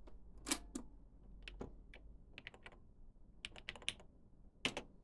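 The piano-key controls of a portable cassette recorder clack down twice, pressed into record. Then comes a run of keystrokes on a TRS-80 Model 100's full-travel keyboard, with one louder key press near the end.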